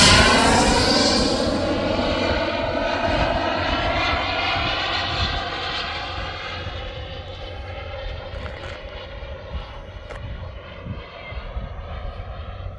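KingTech K-210 G4+ model turbine engine of a BDX RC jet whining as the jet makes a fast pass. The whine is loudest right at the start, drops in pitch as the jet goes by, then fades steadily as it flies away.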